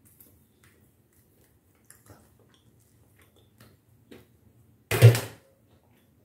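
Faint small clicks and rustles of a dense, unrisen homemade bread roll being handled and torn apart, then one short, loud burst of noise about five seconds in.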